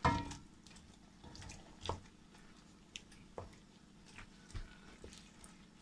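Wooden spatula stirring yogurt-coated chicken pieces in a pan: soft, wet squishing with scattered short knocks of the spatula against the pan, about one a second, and a louder one right at the start.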